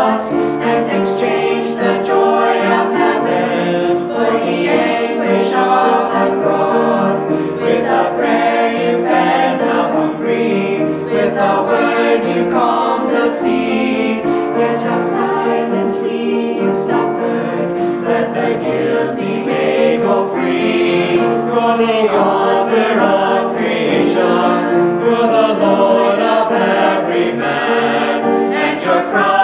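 Mixed choir of young men and women singing together.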